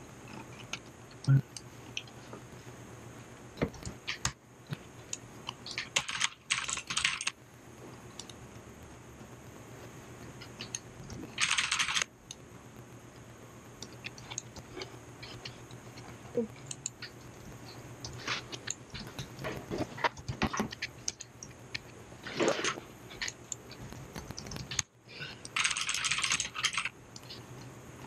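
Typing on a computer keyboard: irregular runs of key clicks with pauses between them. A few short hissing rushes of about a second each stand out among the clicks, and a steady low hum runs underneath.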